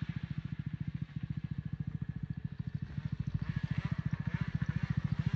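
Snowmobile engine running with an even, rapid low pulse of about a dozen beats a second; a fainter, higher engine note rises about three seconds in.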